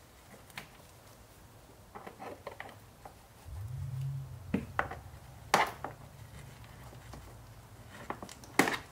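Scattered light clicks and taps of a plastic trim tool and wire working against the headliner trim as a dash cam power cable is tucked between the headliner and the windshield; the sharpest clicks come about halfway through and near the end. A low steady hum comes in about a third of the way through and keeps on.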